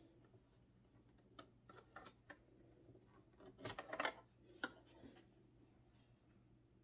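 Faint small clicks and rattles of hands threading the needle area of a Brother SQ9130 sewing machine: a few light clicks, then a denser cluster of sharper clicks a little past the middle, and one more just after.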